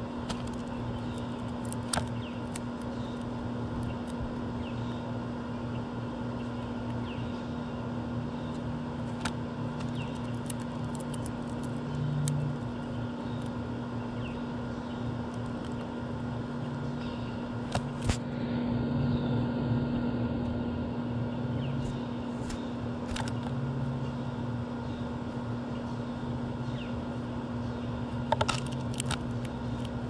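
Sharp irregular clicks and taps from a female northern cardinal's beak and feet on a clear plastic window feeder as it eats seed, with faint distant bird chirps. Under it all runs a steady low hum of city background noise.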